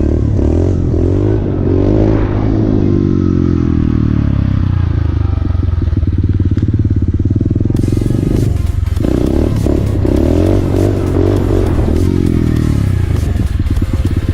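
Motorcycle engine running under way, its pitch rising and falling repeatedly as the throttle is opened and closed through the gears. A steady rush of wind noise comes in about halfway through.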